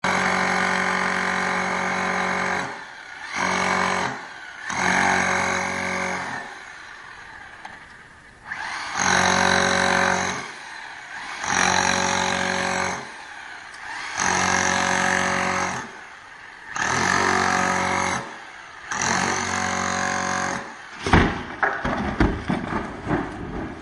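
Power demolition hammer chiselling into concrete in about eight bursts, each one to two seconds long, with short pauses between. About three seconds before the end, broken concrete falls and crashes down in a run of sharp knocks.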